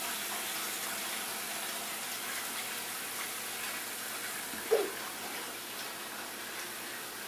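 Kitchen tap running steadily into the sink. About two-thirds of the way through, a toddler gives one short, pitched vocal sound.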